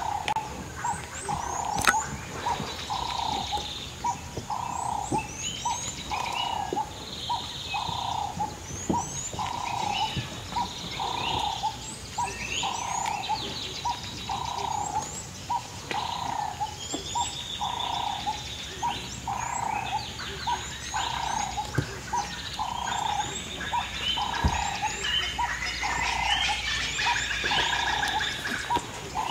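Wild birds chirping and whistling, over a monotonous mid-pitched call repeated evenly a little more than once a second.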